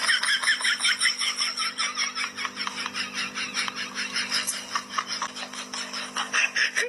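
Rapid, rhythmic scratching or rasping strokes, about six a second, over a steady low hum.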